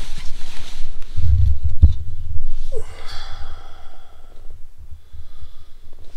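A man breathing and sighing on waking, with a pitched, gliding breath sound in the middle, over a loud low rumble that comes and goes and one sharp click.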